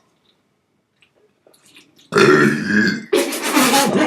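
A person's loud burp about two seconds in, followed straight away by a second loud burst.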